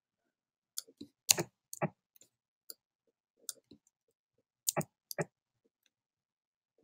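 Clicks of computer keys and a mouse, about a dozen short separate clicks, some in quick pairs, as a video editor is stepped frame by frame and adjusted. The clicks stop about five and a half seconds in.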